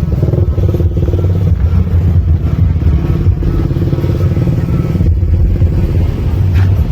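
A motor vehicle engine running loudly and steadily, with a low, pulsing drone.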